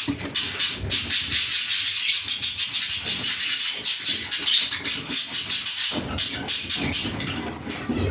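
Budgerigars chattering and warbling together in a continuous, busy, high-pitched stream of rapid chirps.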